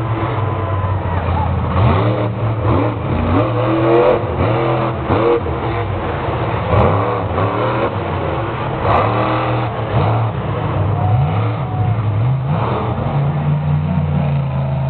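Monster truck engine revving hard during a freestyle run, the pitch repeatedly sweeping up and down, then settling to a steady drone near the end.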